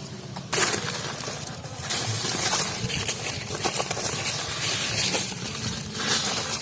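Hardened clay crust being cracked and scraped off a fire-baked chicken. A dry, crunchy rasping with many small clicks and crackles sets in about half a second in and continues unevenly.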